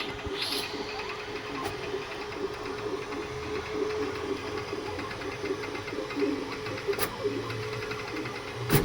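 Creality K2 Plus 3D printer running a print: its motors buzz with a steady tone and quick stuttering moves, with a few sharp clicks, the loudest near the end. The owner finds the noise unusual and wonders whether a slower print speed is the cause.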